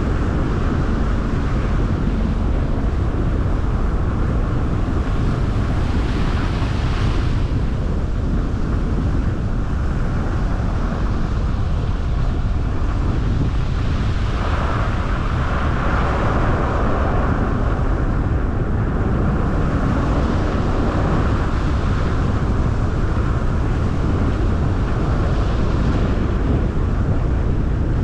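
Car driving at steady speed: constant low road rumble and tyre hiss, with wind buffeting the camera's microphone.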